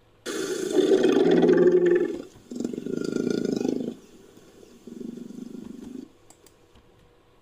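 Elephant rumbling in three calls, each shorter and fainter than the one before, then quiet.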